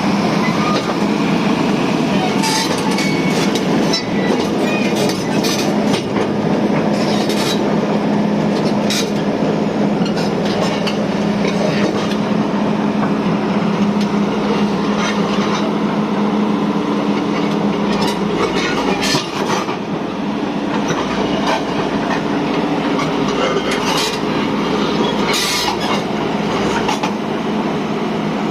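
Volvo excavator running steadily under work, its diesel engine holding a constant drone, with scattered metallic clanks and squeaks from the machine as it operates.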